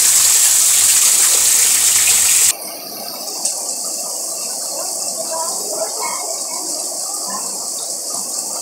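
Heavy rain pouring, a loud steady hiss. About two and a half seconds in it cuts abruptly to a quieter, more distant wash of rain.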